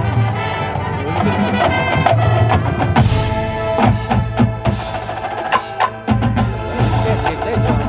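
Marching band playing its field show: sustained brass and wind chords with sharp drum and mallet-percussion strikes throughout.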